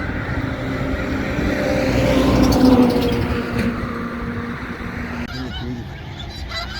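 A motor vehicle passing close by, growing louder to a peak about two and a half seconds in and then fading as its pitch drops slightly, over the steady honking of a large snow goose flock.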